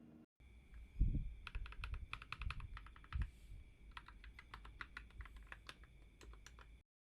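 Typing on a mechanical keyboard fitted with PBT OEM-profile pudding keycaps: two quick runs of key clacks, with a low thump about a second in. The sound cuts off abruptly near the end.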